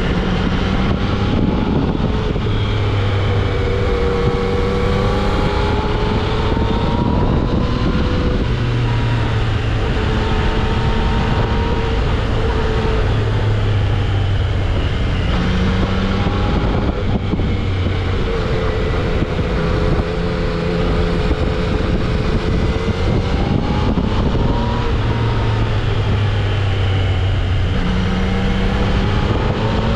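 Yamaha XSR900's inline-three engine through its stock exhaust, rising and falling in pitch again and again as the bike accelerates and rolls off, over a steady rush of riding wind.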